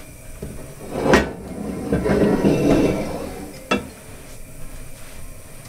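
Frying pan clanking as it is moved and set on the stove's metal grate: a sharp knock about a second in, a scraping stretch, and a second sharp knock near the four-second mark.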